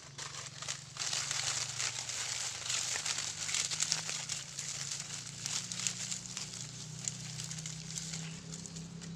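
Dry leaves and twigs crackling and rustling as a bundle is handled against the end of a bamboo exhaust pipe, with a low steady hum running underneath.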